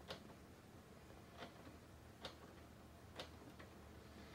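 Near silence, with faint sharp clicks about once a second, unevenly spaced.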